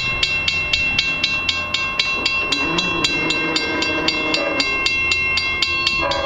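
Railroad grade-crossing bell ringing rapidly, about four strikes a second, each strike ringing on into the next. A short, louder tone sounds under it near the end.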